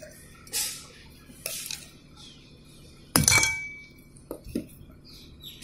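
A hammer tapping a new bearing bush into a table fan motor's housing: a few light metal clinks, then one hard strike a little past halfway that rings on briefly, then two smaller knocks.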